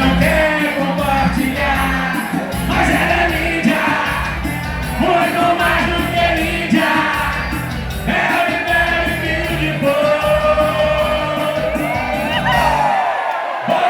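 Upbeat vanera band music with a steady beat and a melodic instrumental line, without sung lyrics; the bass and beat drop out briefly near the end.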